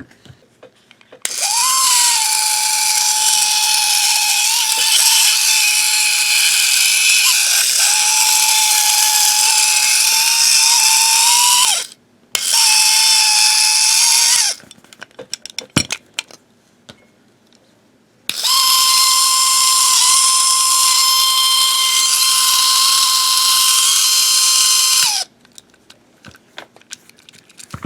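Battery-powered toy train motor of a Wooden Railway Percy running loudly: a steady high whine over a harsh gear buzz, the noisy motor the engine is being repaired for. It runs for about ten seconds, cuts out briefly, runs two more seconds and stops, with a few small clicks, then runs again for about seven seconds.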